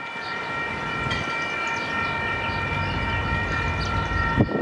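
Diesel locomotive's air horn sounding one long, steady blast of several notes at once as the train approaches, cutting off near the end, over a low engine rumble that grows louder.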